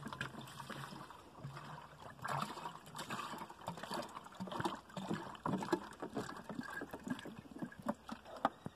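Water being poured from a bottle into a plastic coolant expansion tank, trickling and gurgling unevenly, with short knocks from the bottle and funnel being handled. This is topping up the coolant.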